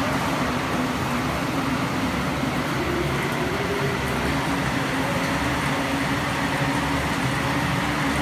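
Plastic film squeezing-drying machine running steadily: a constant mechanical drone with a low hum that wavers slightly in pitch.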